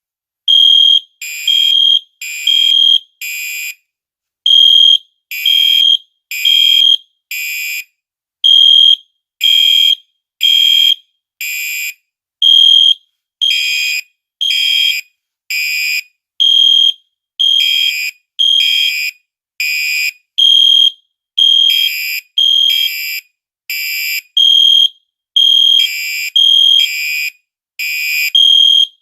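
Gentex and Genesis fire alarm horns sounding a high-pitched temporal-3 evacuation pattern: three short blasts, a pause, then three again, repeating steadily. The two horns are slightly out of step, so some blasts sound doubled.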